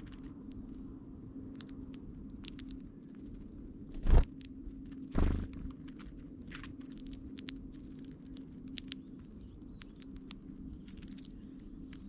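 Eurasian bullfinches pecking and cracking sunflower seeds close by: a scatter of small clicks and crunches, with two loud thumps about a second apart a few seconds in. A low steady hum lies underneath.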